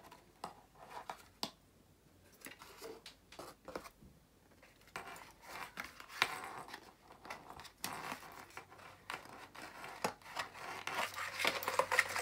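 Cardboard box and its white plastic insert being handled by hand: scattered rubbing, scraping and light clicks, sparse at first and busier from about halfway through as the insert is pulled out and the speed controller lifted from it.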